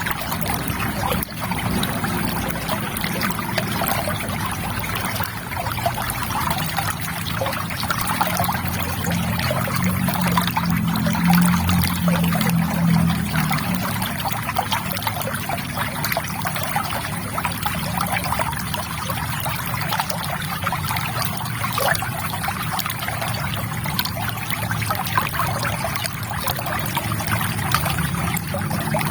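River water trickling in a steady flow, with a deeper gurgling swell for a few seconds near the middle.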